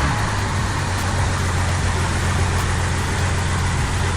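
Ferrari 812 Superfast's 6.5-litre V12 running steadily at idle just after firing up for the first time since its rebuild.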